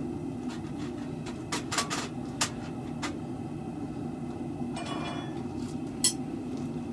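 A few sharp hammer strikes on the steel sword blade as it is pounded straight, irregularly spaced with the loudest near the end, over a steady low hum. A brief ringing sound comes about five seconds in.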